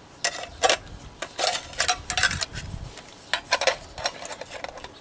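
Metal camp cook-kit pots and lid clinking and clattering against each other in a string of short rattles as the pieces are fitted together.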